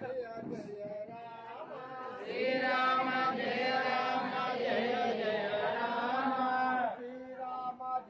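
Sanskrit mantras chanted in a steady, drawn-out voice. About two seconds in the chanting grows louder and fuller, and it falls back to its earlier level about seven seconds in.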